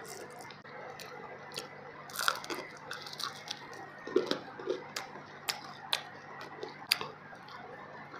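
A person chewing a mouthful of fish biryani with the mouth close to the microphone, with sharp wet mouth clicks scattered through.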